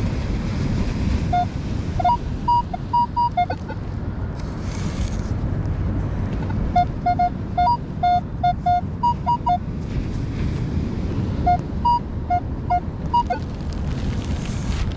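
Metal detector beeping all over the place: quick runs of short tones at two pitches, a lower and a higher one, in three clusters as the coil is swept over sand. A steady low rumble runs underneath.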